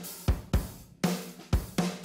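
Intro music: a steady drum-kit beat with kick drum, snare and cymbals, hitting about two to three times a second.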